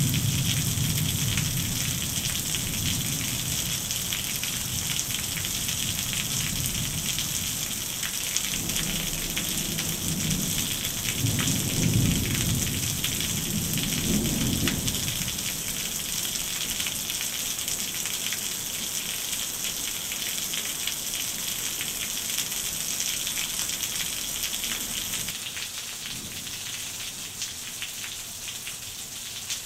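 Heavy downpour hissing steadily on gravel and stones, with thunder rumbling low in the first half, loudest near the middle. Near the end the rumble is gone and the rain sounds lighter.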